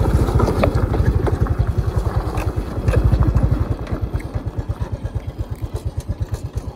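Motorcycle engine running with a rapid, even beat of about eight pulses a second. It eases off in loudness a little past halfway.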